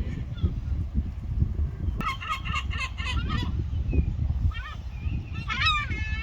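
Gulls calling: a rapid run of short, yelping notes about two seconds in, then further calls with downward-sliding notes near the end, over a steady low background rumble.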